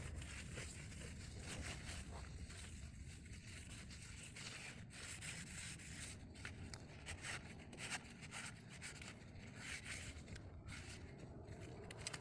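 Faint rustling and rubbing with a few scattered small clicks, like hands handling parts and tools.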